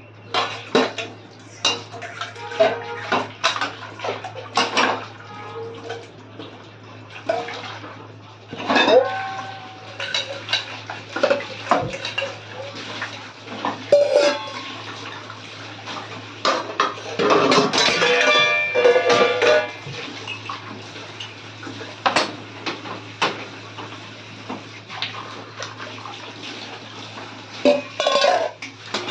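Stainless steel pots, plates and cutlery clanking and clattering irregularly as dishes are washed by hand, some knocks ringing briefly, with some splashing water, over a steady low hum.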